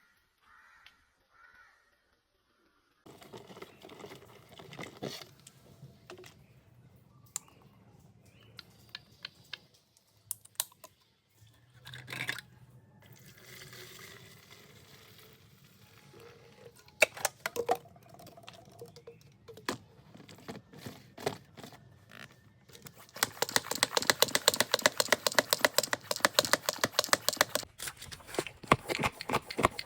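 Scattered clicks and knocks of an object being handled, then about five seconds of rapid, rhythmic clicking rattle near the end.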